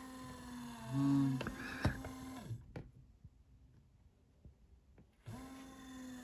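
Motor-driven bag-valve-mask ventilator mechanism cycling through one breath. A motor hum runs about two and a half seconds, louder about a second in, with a sharp click near two seconds in. It then stops for about three seconds and starts the next stroke near the end.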